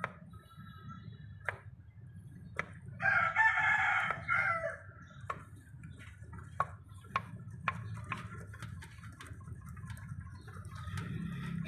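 A rooster crowing once, about three seconds in, over a low steady hum and scattered sharp clicks.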